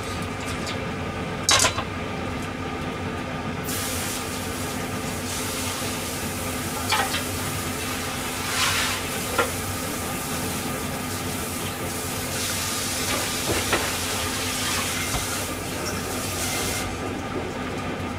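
Steady electrical hum of an induction cooktop. Over it, a hissing rush of noise starts suddenly about four seconds in and cuts off near the end, with a few scattered light clicks.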